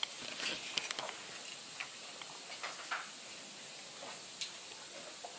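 Footsteps on burnt debris and rubble: a few scattered crunches and clicks over a steady hiss.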